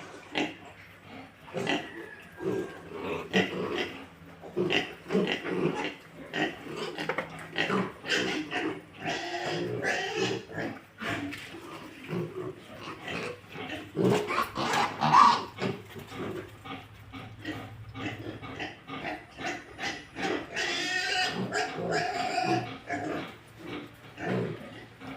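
Pigs grunting over and over, with a louder, higher squeal about the middle and a run of higher squealing calls near the end.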